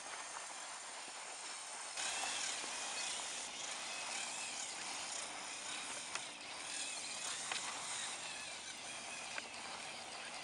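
Faint whine of a Lego Technic rock crawler's electric drive motors and gears, wavering in pitch as it drives, over a steady outdoor hiss, with a couple of small clicks.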